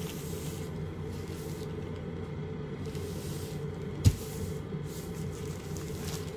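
Steady low room hum, with one sharp knock about four seconds in.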